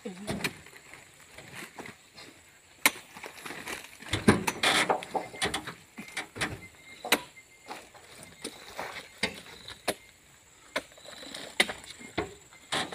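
Irregular knocks and thuds as oil palm fruit bunches are speared on spiked poles and pitched up into a steel-sided dump truck bed, with a louder, denser clatter about four seconds in.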